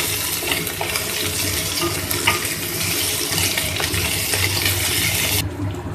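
Onions with garlic and ginger paste sizzling in hot mustard oil in a kadhai, stirred with a spatula that clicks and scrapes against the pan now and then. The steady hiss drops away suddenly about five and a half seconds in.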